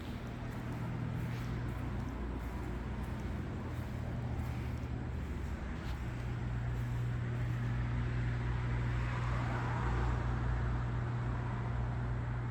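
A steady low mechanical hum over even background noise, with no clear change.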